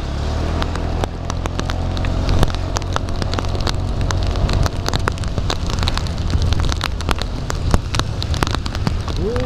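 Heavy rain, with many drops tapping sharply on the plastic bag wrapped around an action camera, over a steady low engine hum.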